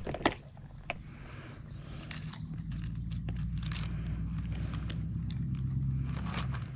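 Small plastic clicks and crinkling as a hand rummages through a plastic tackle box of jigs and a plastic bag. A loud, steady low rumble starts about two and a half seconds in and cuts off near the end.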